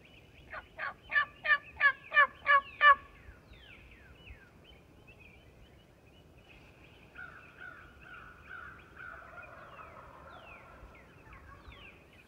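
Wild turkey calling: a series of about eight yelps, roughly three a second, each louder than the one before. Fainter turkey calls and songbird chirps follow later.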